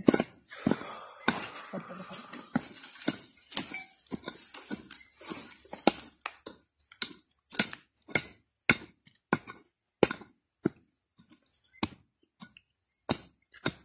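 Digging by hand in dry soil at a metal-detecting hole: a run of short scraping and striking strokes into the dirt, uneven at first, then steadier at about two a second. A high insect chirr fades out in the first second.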